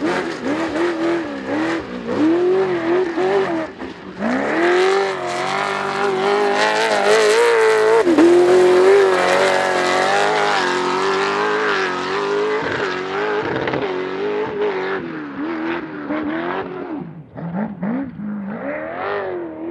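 Class 1 unlimited desert racing buggy's engine revving hard. The revs dip and climb several times as it works through a turn, then hold high as it accelerates, and the sound fades near the end as the car pulls away.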